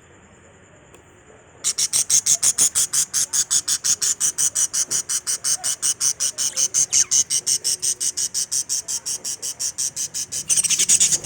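Insect, most likely a cricket, chirping in a fast, even pulse of high-pitched notes at about seven a second. It starts abruptly a little under two seconds in and swells slightly near the end.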